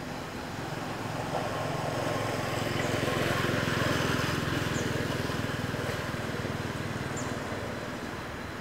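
Engine noise of a passing motor vehicle, a steady rumble that swells to a peak three to four seconds in and then fades away.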